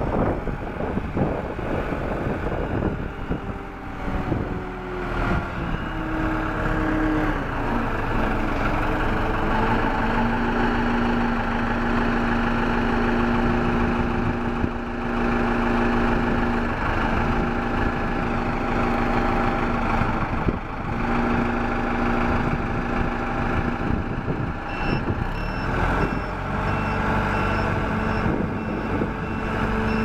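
The 1999 SkyTrak 10054 telehandler's engine running as the machine drives and steers, its pitch dropping a few seconds in and then holding steady. A reversing alarm beeps repeatedly near the end.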